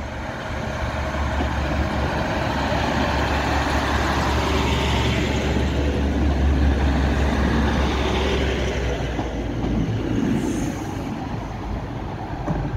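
Class 156 Super Sprinter diesel multiple unit passing close by, its underfloor Cummins diesel engines giving a steady low drone. The sound builds to its loudest as the cars go past, about six to eight seconds in, then fades as the train moves away.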